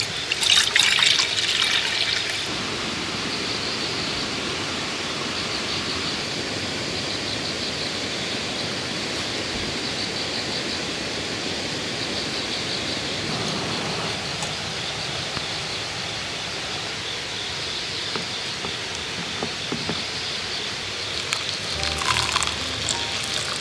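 Steady outdoor evening ambience: an even rushing hiss with a continuous high, fast-pulsing chirr over it. Music comes in near the end.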